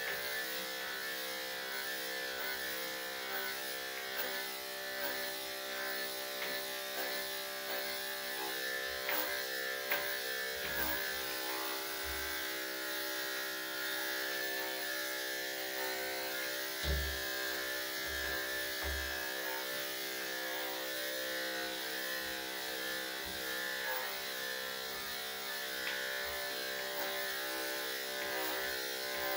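Electric dog-grooming clippers running steadily with a buzzing hum as they shear a Cocker Spaniel's coat. A few dull low thumps come around the middle, the loudest a little past halfway.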